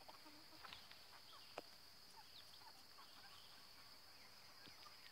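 Near silence: a faint, steady high-pitched drone of insects, with a few faint chirps and a soft click about a second and a half in.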